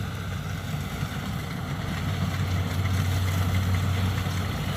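Kubota DC70 combine harvester's diesel engine running steadily with a low, even hum.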